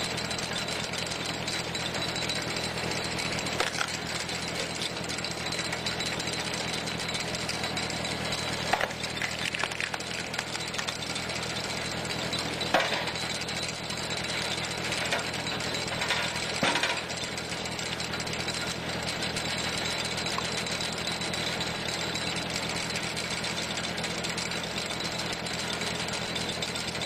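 Tractor engine running steadily under the PTO drive of a screw log splitter, with scattered sharp cracks and knocks as the threaded cone screw bores into a log and splits it; the loudest cracks come about 9 and 13 seconds in.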